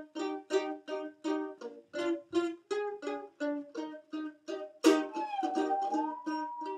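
Background music: a strummed string instrument plays steady chords roughly every half second. About five seconds in, a loud chord lands and a smooth, slowly gliding held melody tone joins it.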